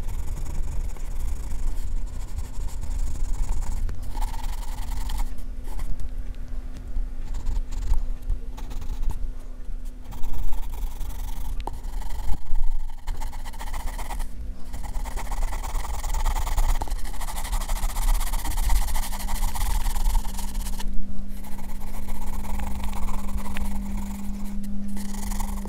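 Graphite pencil scratching across paper in rapid back-and-forth hatching strokes as fur is shaded, in runs broken by brief pauses, over a steady low hum.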